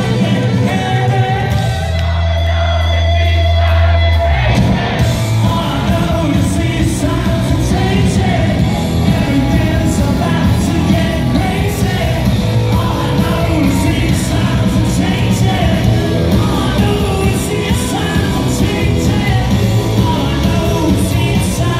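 Rock band playing live in a large hall: electric guitars, bass and drums with lead vocals. About two seconds in, the band holds a low chord with the drums out, and a couple of seconds later the full band kicks back in.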